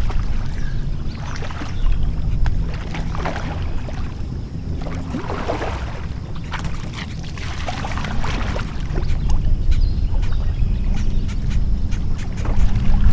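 A hooked common carp splashing and thrashing in shallow water as it is played in and grabbed by hand, in irregular bursts of splashing and sloshing over a steady low rumble.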